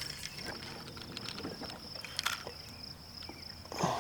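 Steady high-pitched insect chirring, with scattered small clicks and light knocks.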